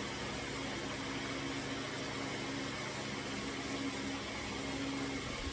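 Steady low hum and hiss of background noise with a faint even tone in it; no shot is fired.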